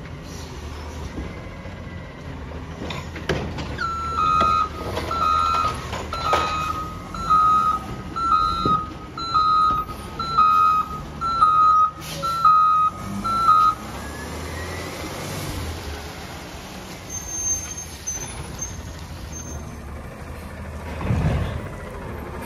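Automated side-loader garbage truck working: its diesel engine runs steadily with a few clunks from the arm and cart, while its backup alarm beeps at one pitch about once a second for around ten seconds. Near the end the engine swells as the truck pulls away.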